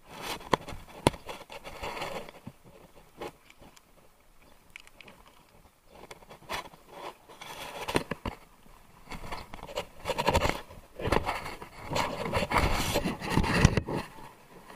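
Irregular handling noise close to the microphone: scraping and rustling with scattered sharp clicks and knocks, busier and louder in the last few seconds.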